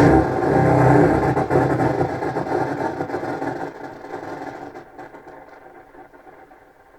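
Low contrabass clarinet sound processed through a granular delay pedal, a dense, grainy, engine-like texture that dies away steadily over several seconds as the delay trails off.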